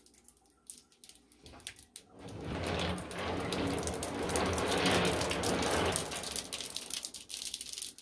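Very dry hard candies crackling and popping in hot water with faint, Pop Rocks-like clicks. About two seconds in, a hand starts stirring the water in a stainless steel sink, a loud sloshing and swishing that fades out toward the end while the crackling carries on.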